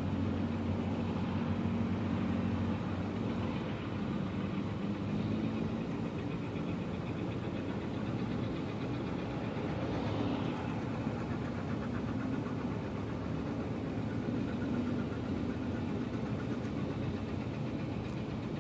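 Vintage farm tractor engines running steadily at low parade speed as the tractors pass one after another, first a red Farmall, then a green John Deere.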